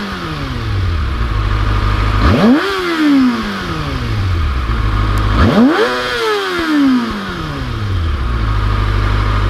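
Kawasaki Ninja 636 inline-four with its stock exhaust, revved hard twice from idle: each blip shoots up quickly and falls away back to a steady idle, with the last settling about eight seconds in. Super loud.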